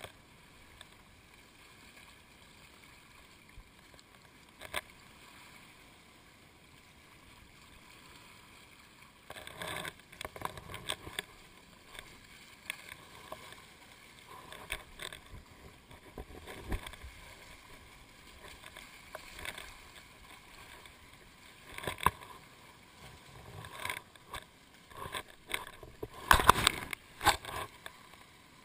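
Seawater lapping and splashing against an action camera held right at the sea surface, heard muffled through its waterproof housing. It is faint at first, then irregular splashes come from about nine seconds in, the loudest near the end.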